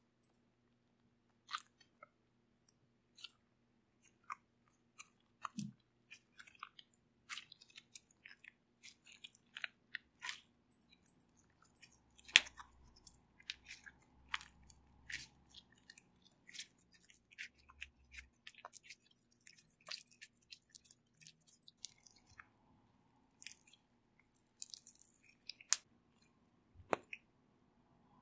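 Slime being mixed and squeezed by hand, giving irregular sticky clicks and small pops, a few a second, with one sharper pop about twelve seconds in.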